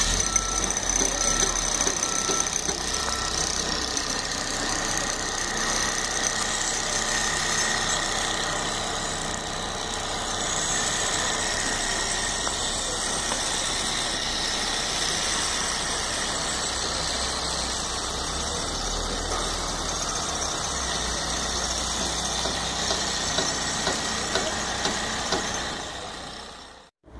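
Construction machinery running steadily with a high-pitched whine, and a few short, evenly spaced beeps in the first three seconds.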